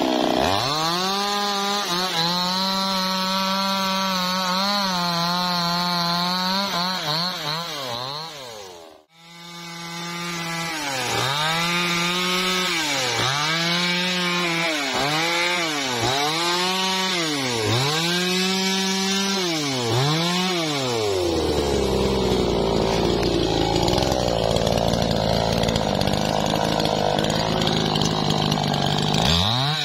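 Maestro MT6500L two-stroke chainsaw held at high revs while cutting through a felled teak log, breaking off abruptly about nine seconds in. It then starts again with about eight quick throttle blips, each rev rising and falling. It then settles to a lower, steadier running note, with a rev starting again at the very end.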